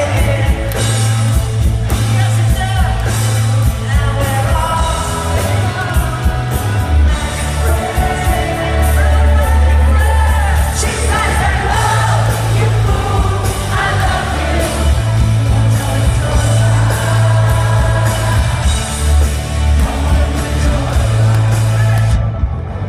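A pop-rock band playing live in an arena, with a singing lead vocal over guitars, keyboards and drums and heavy bass, and the audience yelling and whooping along.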